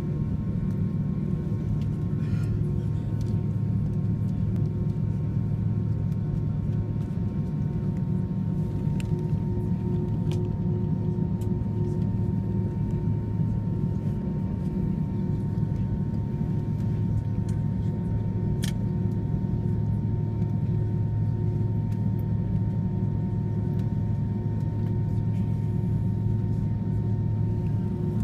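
Steady low droning hum of an airliner on the ground, with a few faint ticks.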